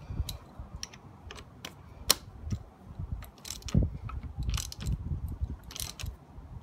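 Spark plug socket and extension clicking and clinking in irregular taps as a new spark plug is turned into the cylinder head of a Mercury 20 hp four-stroke outboard.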